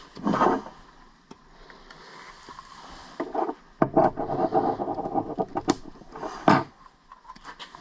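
Handling noise from a spring-loaded spike-launching self-defence device being picked up and readied for another shot: scraping and rubbing, with a few sharp clicks between about four and seven seconds in.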